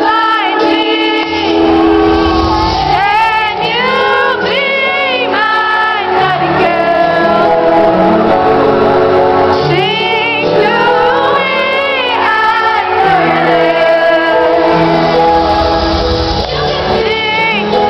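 Live pop ballad: a woman singing long held notes with vibrato over sustained accompaniment.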